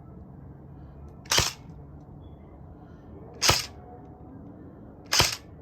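Three single shots from a Crosman Pulse R76 airsoft gun with a T238 tracer unit on the muzzle, each a short sharp snap, about two seconds apart.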